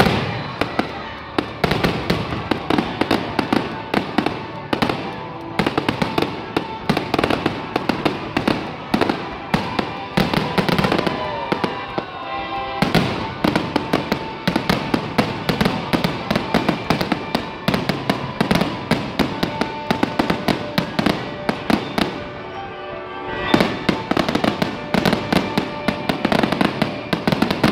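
Fireworks show: a dense, continuous run of bangs, pops and crackles from aerial shells, easing briefly about twenty-two seconds in, with the show's music playing underneath.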